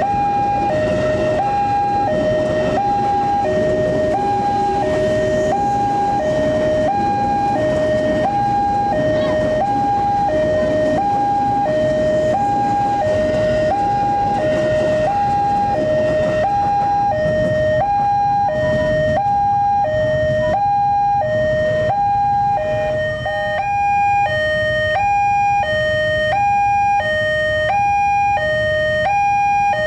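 Level-crossing warning alarm sounding a two-tone electronic chime: a high and a low note alternate evenly, each about two-thirds of a second long, over a steady low rumble.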